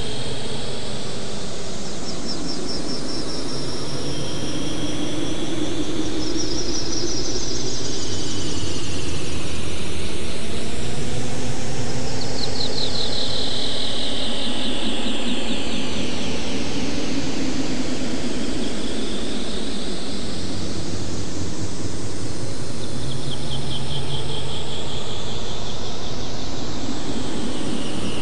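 Synthesized SuperCollider sound effect: a steady noisy rush with several tones that sweep slowly up and down, each rise and fall taking a few seconds.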